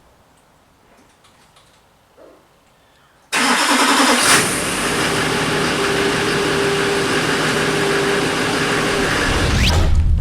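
A vehicle engine running loudly and steadily, cutting in abruptly about three seconds in after near quiet, with a brief rising whine near the end.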